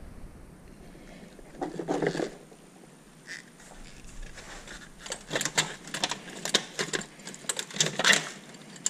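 Hands handling the car's wiring and a 12 V battery cable terminal: a rustle about two seconds in, then a run of quick metallic clicks and rattles from about five seconds on.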